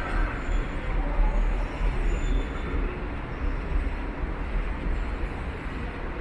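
Subway train running through the station: a steady low rumble under a dense wash of noise.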